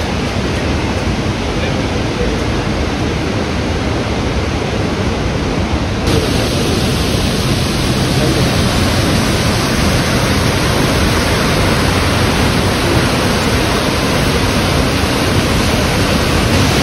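Steady rushing roar of the Iguazu Falls' cascades, a dense, even noise of falling water. About six seconds in it turns suddenly brighter and a little louder.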